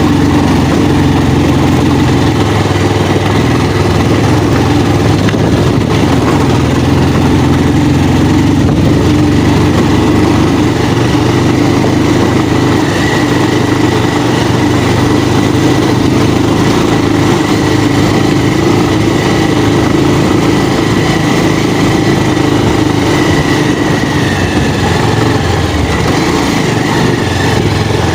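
Motorcycle engine running steadily at low speed, with a faint high whine that sets in about a third of the way through and dips slightly in pitch near the end.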